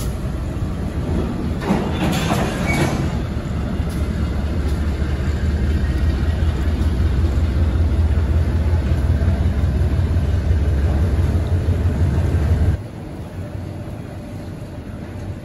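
Freight train wagons loaded with shipping containers rolling slowly across a street level crossing. A low, steady rumble runs under it and drops away suddenly about 13 seconds in.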